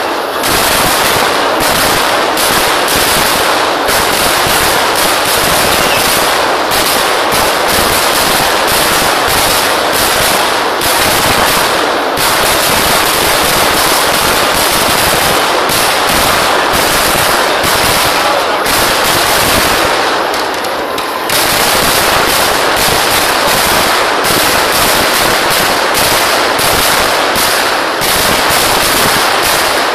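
Festival fireworks going off in a continuous, dense barrage of firecracker bangs in rapid succession, like machine-gun fire, easing briefly about twenty seconds in before picking up again.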